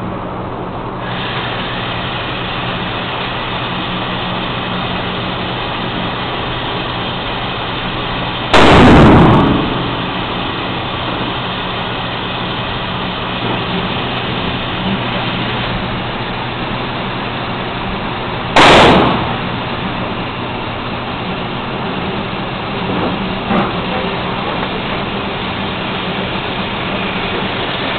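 Two shots from a Marlin .30-30 lever-action rifle in an indoor range, about ten seconds apart, each loud enough to clip and trailing a short echo, over a steady background hum.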